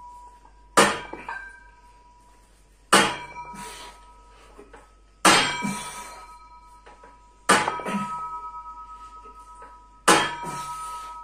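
Plate-loaded barbell clanking at the top of each rep of a chest-supported bench row: five sharp metallic clanks about two seconds apart, each leaving a brief ringing tone.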